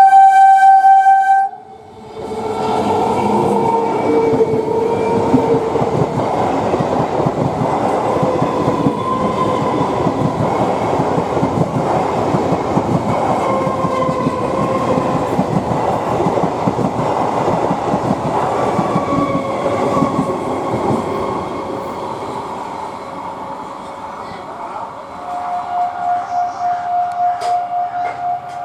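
An EMU electric local train sounds one loud horn blast, about a second and a half long. It then passes at speed, its wheels clattering over the rails for about twenty seconds before the noise fades. Near the end a steady tone sets in, pulsing in loudness.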